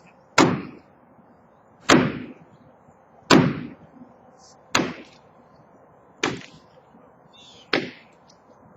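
Six heavy sledgehammer blows, evenly spaced about a second and a half apart, each ringing out briefly.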